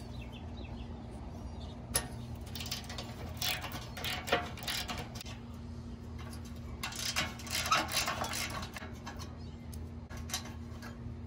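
Hand ratchet and socket loosening small nuts: several runs of quick ratchet clicks with metal clinks and knocks, over a steady low hum.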